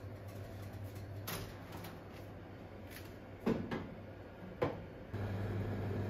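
Drop-down door of an RE-WF261 microwave oven opened and shut with two knocks about a second apart as a baking tray of cookies goes in. A steady low hum sets in just after the door closes.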